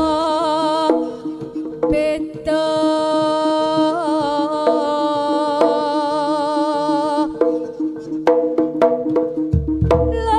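Jaranan gamelan ensemble playing: a held, wavering melody line over hand-drum strokes. The melody breaks off about seven seconds in, leaving sharp drum strokes.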